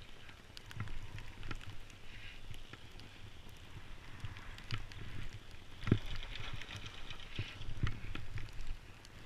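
Hiss of sliding downhill through deep powder snow, swelling and fading with each turn, with low thumps and knocks from the ride over the snow. The loudest knock comes about six seconds in.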